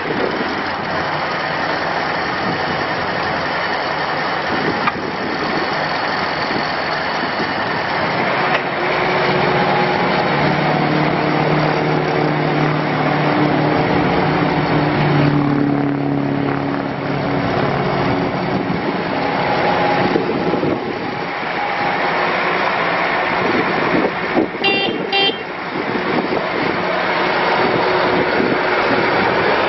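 2014 Bobcat S510 skid steer loader's diesel engine running, its pitch rising and falling as the machine is worked. A short run of high beeps comes near the end.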